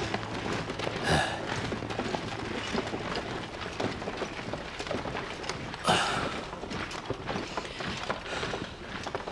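A body of armoured soldiers and horses on the move: footsteps, gear rattling and hooves clopping in a dense stream of small knocks. Two louder short bursts stand out, about a second in and again about six seconds in.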